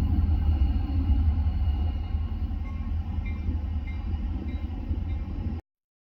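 EMD GP40-2 diesel-electric locomotive's turbocharged V16 diesel engine running, a steady deep low rumble. It cuts off suddenly near the end.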